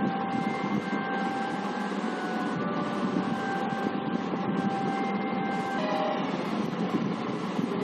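A film soundtrack heard through the room as it plays on a screen: a steady hiss with a few faint held tones that fade out about three-quarters of the way in.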